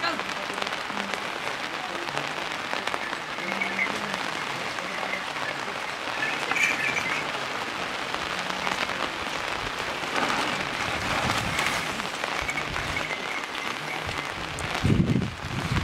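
Steady rain pattering on plastic sheeting, with a louder low rush near the end.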